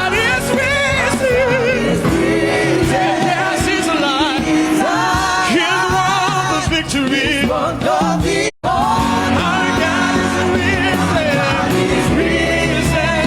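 Church choir singing a gospel song with instrumental backing. The sound cuts out completely for a split second about eight and a half seconds in.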